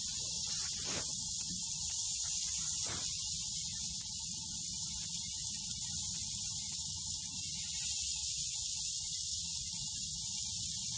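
Shrimp sizzling on a hot grill grate, a steady hiss.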